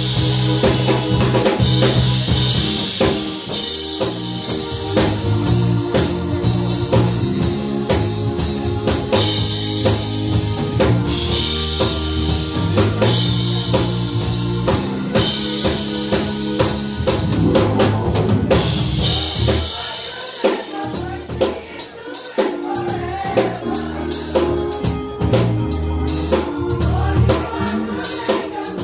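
Live gospel praise music: a drum kit keeps a steady beat with cymbal crashes over held organ chords and a bass line. The bass drops out briefly about twenty seconds in.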